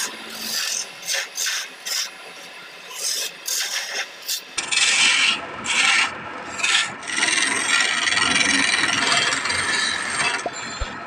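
A woodturning chisel cutting and scraping a spinning wooden baluster on a lathe. Short scraping strokes come first, then from about halfway a longer, steady cut that stops near the end.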